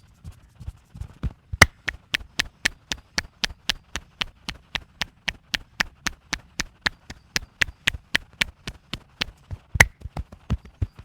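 Percussive stick massage: dull thumps on the body, then about a second and a half in a fast, even run of sharp wooden clacks, about four a second, for some eight seconds. The run begins and ends with its loudest strike, and dull thumps return near the end.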